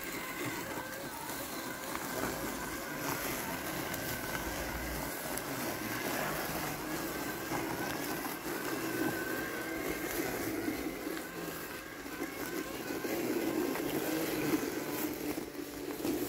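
Landxcape 790 robotic lawn mower running as it drives through tall, wet grass, its electric motors giving a steady whine that wavers in pitch.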